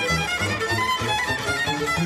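Background instrumental music: a quick melody of short pitched notes over a pulsing bass line.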